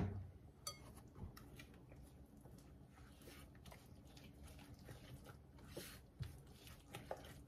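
Faint, soft scraping and squishing of a silicone spatula stirring thick creamed butter-and-sugar batter in a glass bowl, with a few light ticks. One sharp knock right at the start.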